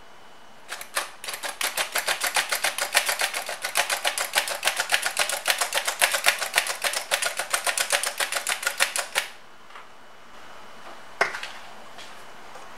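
Hand-operated stainless steel flour sifter being worked as it sifts flour: a rapid, even metallic clicking of about six clicks a second that runs for about eight seconds and then stops. A single knock a couple of seconds later as the sifter is set down.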